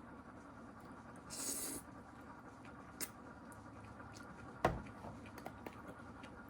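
Small handling noises in a quiet room: a short rustle about a second in, a sharp click, then a thump, the loudest sound, followed by a few light ticks.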